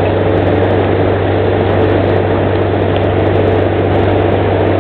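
Glastron SV 174 motorboat's engine running steadily under way, a constant low hum heard from the cockpit together with rushing wind and water noise.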